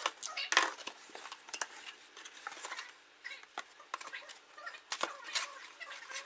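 Cardboard being handled: a slit-open shipping carton pulled apart and a plain cardboard box inside lifted out and turned over, making irregular scraping, rustling and tapping, loudest about half a second in.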